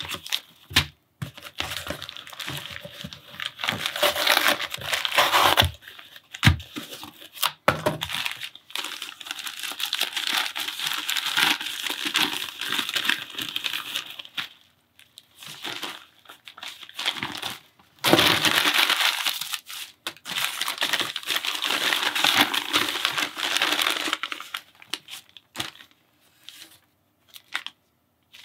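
Packing paper and plastic wrapping being crumpled and handled close to the microphone, crinkling and rustling in long spells with short pauses. There are a couple of sharp clicks about six and a half seconds in.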